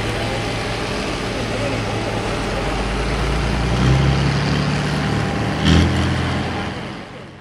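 John Deere farm tractor engine running under load as it pulls a weighted sled. The engine note steps up and gets louder about four seconds in, there is a short knock a little before six seconds, and the sound fades out near the end.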